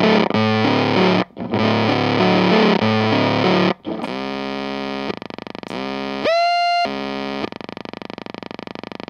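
Electric guitar through a Chase Bliss Bliss Factory fuzz pedal playing a thick, distorted riff that breaks off just before four seconds in. The fuzz then self-oscillates as its stability knob is turned: a buzzing, pitched drone that jumps up to a higher squeal with a rising onset for about a second, then falls back to a lower buzz.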